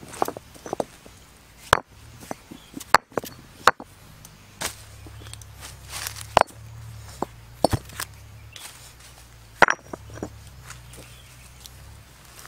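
Irregular sharp knocks, stone striking stone, as rocks are set down and stacked on one another, about a dozen over the span.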